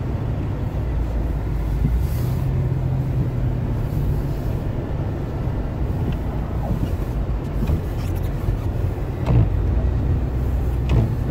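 Steady engine hum and road noise heard from inside a car's cabin as it drives through snow. A couple of sharp knocks come near the end.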